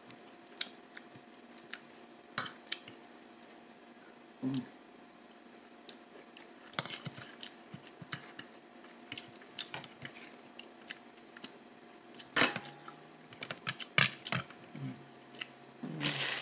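Eating sounds: scattered sharp clicks and taps of a metal fork on a plate, mixed with chewing and lip smacks, the loudest about two and twelve seconds in. A few short 'mm' hums come in between.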